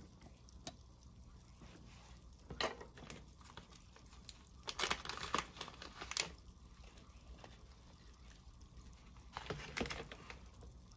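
Scattered crinkling and light clicks of small things being handled, in short clusters about two and a half seconds in, around five to six seconds, and again near the end.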